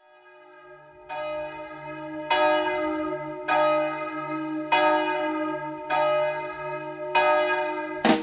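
A bell tolling as the intro of a music track: six strikes at an even pace of a little over one a second, each ringing on over a steady low drone that fades in at the start. Drum-led music comes in right at the end.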